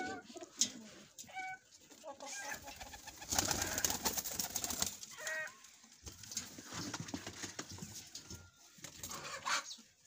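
Domestic pigeons cooing in short scattered calls, with a brief burst of rustling noise about three seconds in.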